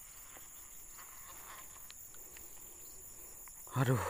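Insects keep up a steady, high-pitched trilling over a faint rural background. Near the end a man lets out a short exclamation, "aduh".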